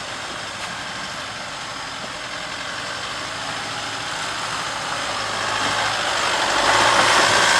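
Off-road 4x4 truck engine running, its sound growing steadily louder over the last few seconds.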